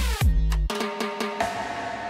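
Background music: drum hits over a deep bass line stop about two-thirds of a second in, leaving a held chord that slowly fades.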